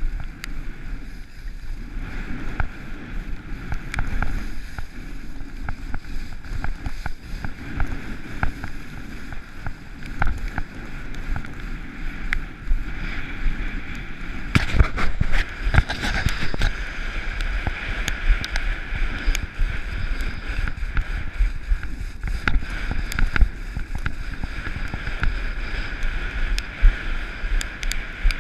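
Skiing or riding down through snow: a continuous scraping hiss of the board or skis on the snow, with wind buffeting the microphone and scattered clicks and knocks, busier from about halfway through.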